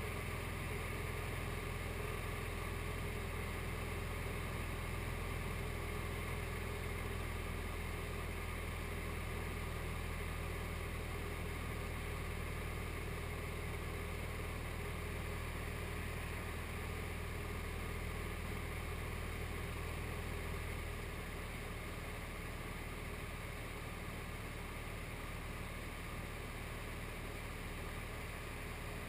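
SD1 Minisport ultralight aircraft's engine running steadily in flight, with a constant hum and airflow. The engine note drops slightly about two-thirds of the way through.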